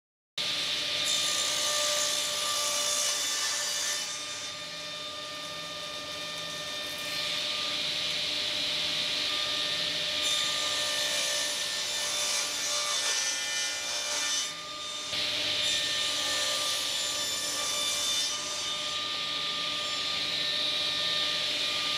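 Table saw running and cutting through wooden boards, a steady motor hum under the noise of the blade in the wood, in several stretches with short drops in loudness between them.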